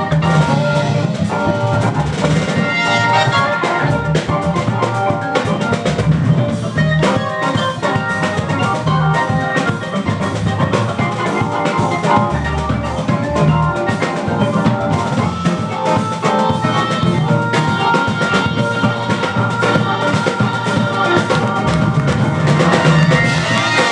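Live jazz organ combo: two B3-style clone organs playing together over a drum kit. The organs sustain chords and lines while the drums keep a steady beat.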